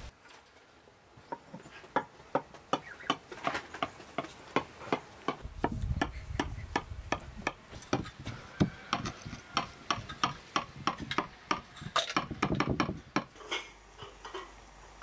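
Knife cutting a cake in a glass baking dish, its blade clicking and scraping against the glass in quick, uneven strokes. The clicking starts about a second in and stops near the end.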